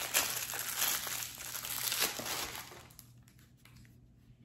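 Clear plastic packaging crinkling as it is handled and pulled open by hand. It stops about two-thirds of the way through, leaving only a few faint clicks.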